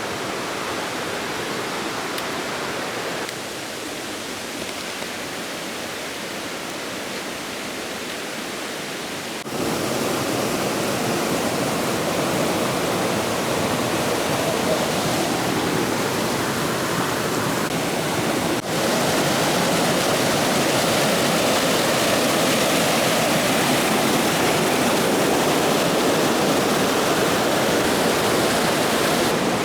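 Rushing stream or waterfall water, a steady even rush that steps louder twice, about a third and about two-thirds of the way through.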